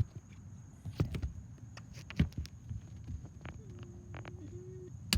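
Irregular soft thumps and knocks, the loudest about one and two seconds in, over a steady high-pitched insect drone.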